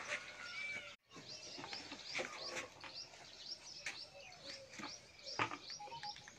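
Small birds chirping, many quick high chirps repeating throughout, with a sharper knock about five and a half seconds in.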